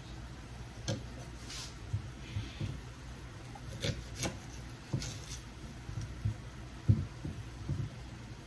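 Kitchen knife cutting green bell pepper on a wooden cutting board: irregular knocks of the blade on the wood, over a steady low hum.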